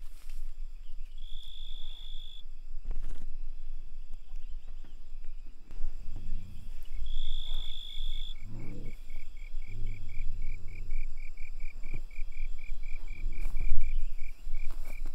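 Evening insects calling: a high steady trill lasting about a second sounds twice, and from the middle on a rapid pulsing call, about four pulses a second, grows louder. A few short low rumbling sounds and soft knocks come in between.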